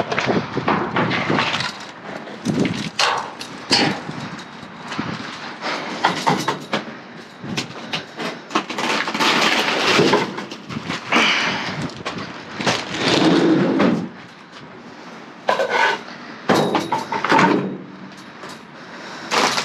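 Rummaging through a dumpster: packages and loose items rustling, knocking and clattering irregularly as they are moved and pulled out.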